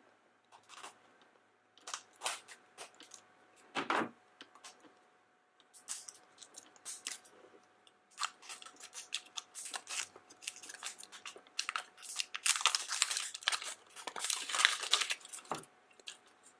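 A blind-bag wrapper being torn open and crinkled by hand: scattered crackles and rips, growing denser and louder in the last few seconds, with a soft thump about four seconds in.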